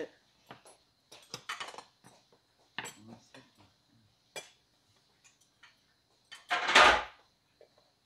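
Scattered clinks and taps of metal chopsticks and spoons against side-dish plates and stainless-steel rice bowls. Near the end comes one louder clatter lasting about half a second.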